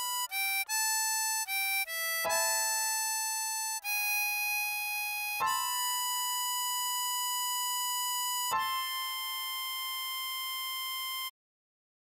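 Ten-hole diatonic harmonica playing a single-note melody line: a quick run of short notes, including a bent 6-hole draw (Ab5), then longer held high notes around hole 7 (B5 and C6). It cuts off about a second before the end.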